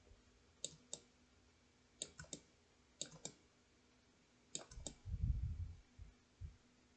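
Computer mouse clicking in quick groups of two or three, four times over a few seconds, followed about five seconds in by a low, dull rumble.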